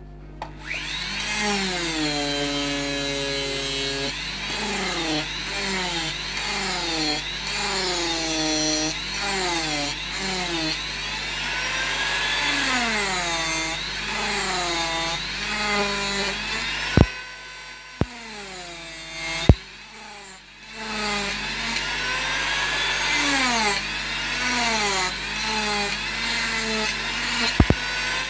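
Handheld rotary carving tool grinding bulk off a wooden carving, its motor whine repeatedly sagging as the cutter bites into the wood and rising again as it eases off. It stops briefly a little past halfway, with a few sharp clicks, then starts again.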